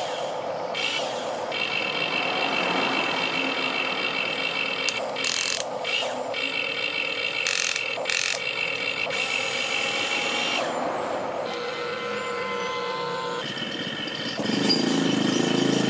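Radio-controlled toy excavator's small electric motors and gearboxes whining as the boom, arm and bucket move, starting and stopping in spells, with a few sharp clicks in the middle. Near the end a louder, lower mechanical noise takes over.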